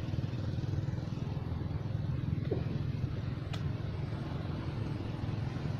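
Steady low rumble, with a faint sharp click about three and a half seconds in.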